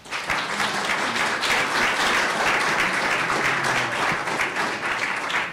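Audience applause, many people clapping at once at the close of a talk. It starts abruptly and thins out near the end.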